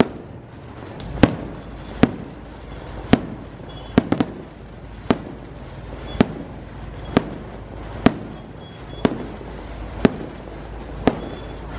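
Aerial fireworks shells bursting in a steady string of sharp bangs, about one a second, with a quick triple bang about four seconds in.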